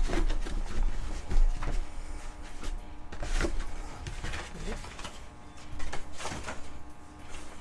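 Hands handling a boxed collector's chest and its cardboard and plastic packaging: irregular rustling and light knocks, the loudest knock about a second and a half in.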